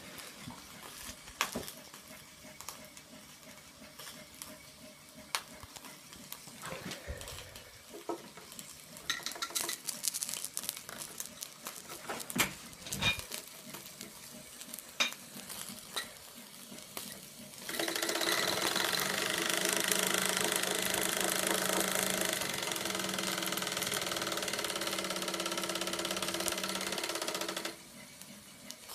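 Light clicks and knocks, then about eighteen seconds in a Mamod live-steam crane's small steam engine runs for about ten seconds, a steady whirring hiss that stops suddenly.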